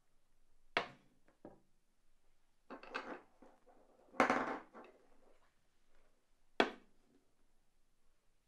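Wooden chess pieces knocked and set down on a wooden chessboard: a few sharp clicks, a short cluster about three seconds in, a longer clatter just after four seconds, and one more sharp click near the end.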